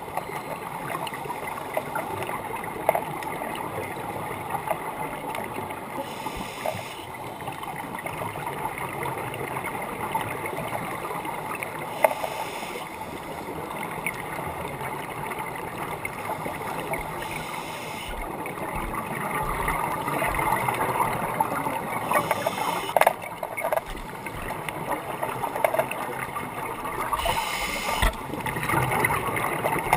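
Underwater scuba breathing through a regulator: a short hiss about every five seconds as the diver inhales, with bubbling exhalations between, over a steady crackling of the water.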